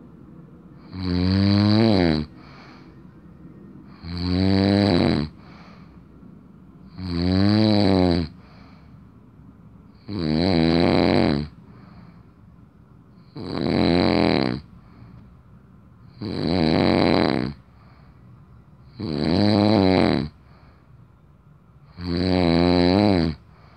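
A sleeping man snoring in a steady rhythm: eight loud, rattling snores, one about every three seconds, each lasting about a second, with quiet breathing between them.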